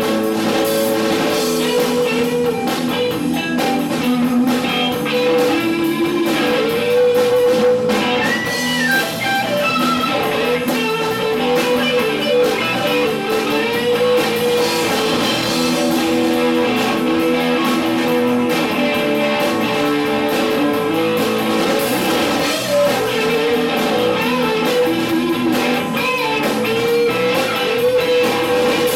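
Electric guitar and drum kit playing an improvised rock jam. The guitar holds long notes, some bent in pitch, over continuous cymbals and drums.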